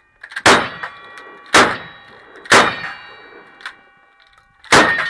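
Four gunshots at an uneven pace, each followed at once by the ringing clang of a hit steel target, the ring hanging on for a second or more.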